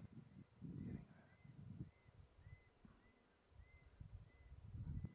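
Faint bush ambience: a steady high insect drone and a soft chirp repeating about twice a second, over uneven low rumbling.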